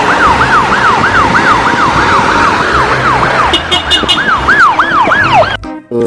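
Ambulance siren sweeping quickly up and down in pitch, about two and a half cycles a second, over road noise; it cuts off suddenly near the end.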